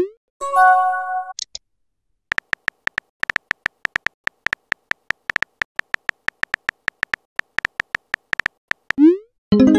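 Keyboard typing clicks of a texting-story app, a steady patter of about three to four clicks a second as a message is typed out. A rising swoosh of a message being sent comes at the start and again about nine seconds in, each followed by a short electronic chime.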